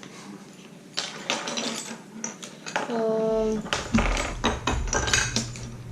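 Plastic Lego bricks clicking and clattering as hands rummage through a loose pile, in quick irregular taps. A short steady pitched note sounds about three seconds in.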